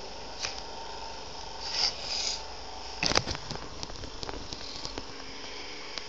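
Handling of a paper-and-tape model pistol and the phone filming it: a click, then a rustling paper scrape, then a loud cluster of clicks and knocks about three seconds in, followed by scattered small ticks. A steady faint hiss and hum sits underneath throughout.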